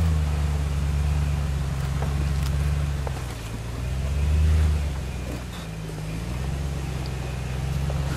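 Toyota LandCruiser 200 Series V8 petrol engine, fitted with a modified exhaust, running at low revs as the vehicle crawls over rocks. The revs dip and rise gently under light throttle, with the strongest rise about four and a half seconds in.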